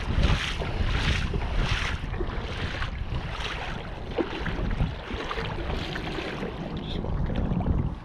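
Wind buffeting the microphone in uneven gusts, over a hiss of moving river water.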